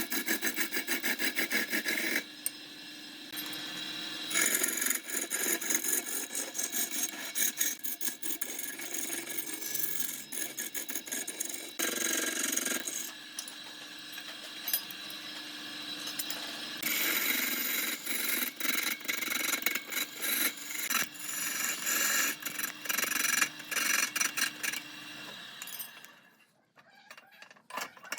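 A tool working wood with repeated rasping, scraping strokes, coming in several short shots. The sound drops away briefly near the end, then starts again.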